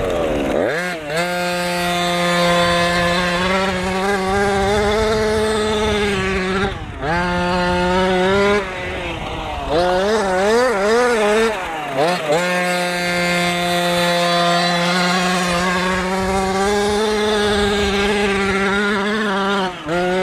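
Two-stroke gas engine of a 1/5-scale RC trophy truck, breathing through a tuned pipe, running at high revs. The pitch drops and climbs back several times as the throttle is lifted and reapplied, with a short wavering stretch of quick throttle blips in the middle.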